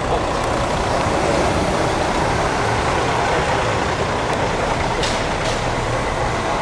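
Steady engine and road noise of a moving open-top tour bus, heard from its open upper deck.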